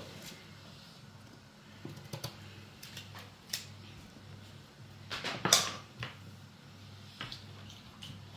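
Kitchen knife peeling and cutting hard quinces by hand: scattered short knife clicks and scrapes over a low steady hum, with a louder clatter about five and a half seconds in.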